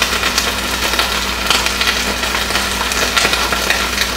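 Broccoli rabe sizzling in hot olive oil with a splash of water in a stainless steel sauté pan: a steady hiss with scattered small pops.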